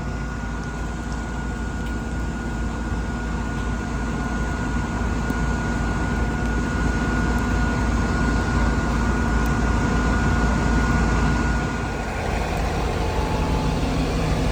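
Fire apparatus diesel engines running steadily, a low rumble with a thin steady whine over it that stops about twelve seconds in.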